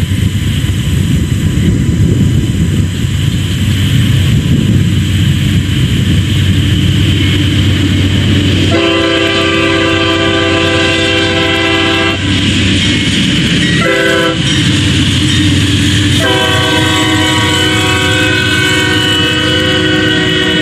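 CSX diesel locomotive's multi-chime air horn: a long blast about nine seconds in, a short one, then another long one held to the end, over a steady low rumble.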